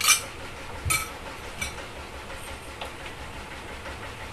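A few sharp clicks over a steady low hiss: a loud one at the start, then weaker ones about one, one and a half and three seconds in.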